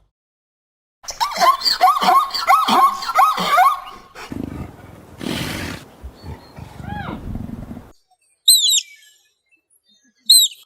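Animal calls: a quick run of pitched calls, then a rougher, noisier stretch with one falling call, and two short high bird chirps near the end.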